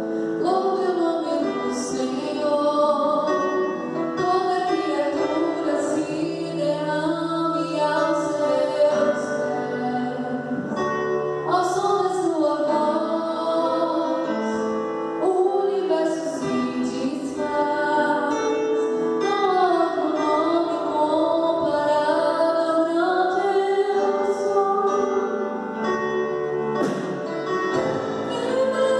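A worship song sung with instrumental accompaniment, the voice carrying a slow melody in long held notes.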